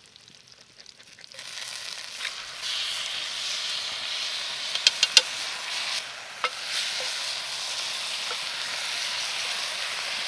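Red cabbage tipped into a hot cast-iron pan of onions frying in lard sets off sizzling about a second and a half in. The steady sizzle carries on as the cabbage is stirred with a wooden spoon, with a few sharp clicks about halfway through.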